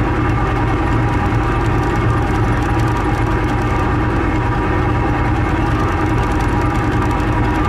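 Engines of the car ferry Osprey 2000 running steadily under way: a constant low hum with several steady tones above it.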